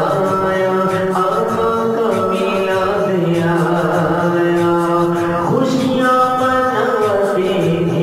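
Male voice singing an Urdu devotional naat in long, held notes that slide between pitches, over a low sustained drone.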